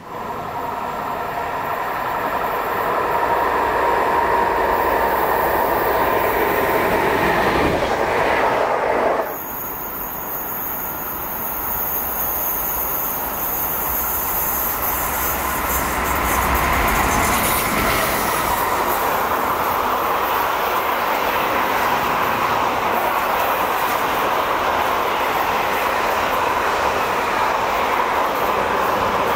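Electric freight train with a Vectron locomotive and loaded timber wagons running through a station: steady wheel-and-rail rumble and clatter as the wagons pass. The first nine seconds carry a steady high squeal that cuts off suddenly, after which the passing-train noise builds again and holds.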